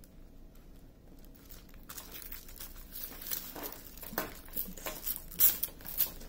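Clear plastic film on a diamond painting canvas crinkling under hands pressing it flat and laying a tape measure along it. Quiet for the first two seconds, then a run of crackles, loudest near the end.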